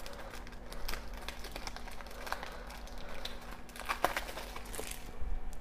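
Clear plastic wrapping crinkling and crackling as fingers peel it off a small plastic Shopkins blind basket, with a couple of sharper clicks about four seconds in.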